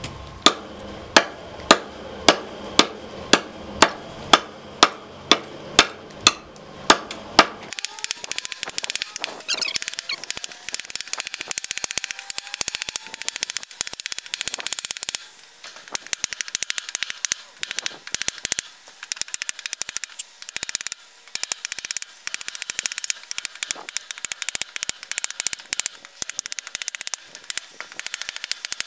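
A hand-forged kitchen chopper knife chopping repeatedly into a hardwood log, each blow a sharp knock. The strikes come evenly at about two a second for the first seven seconds or so, then turn much quicker and lighter for the rest.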